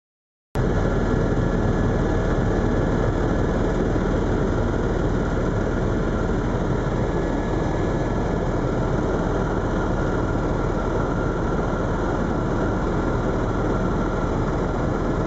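Steady cabin drone of a Eurocopter EC130 Ecostar helicopter in flight, its engine and rotors heard from inside the cabin as a constant noise with a low hum. It cuts in abruptly about half a second in.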